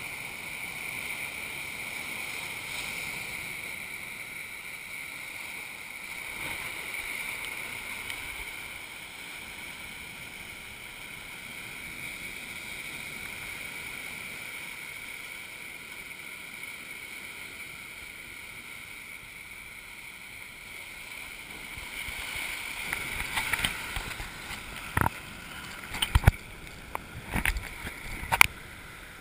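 Surf breaking and washing on a sandy, rocky beach, heard through a waterproof camera case as a steady hiss. In the last few seconds, a series of sharp knocks and splashes comes as the wash of a wave reaches the camera.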